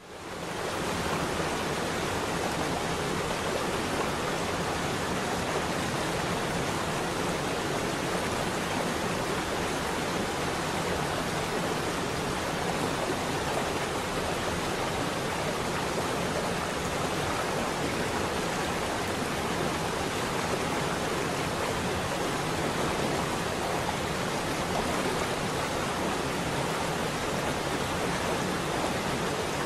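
A steady, even rushing noise like pink noise or falling water, fading in over the first second and then holding level. It serves as the masking track for subliminal affirmations.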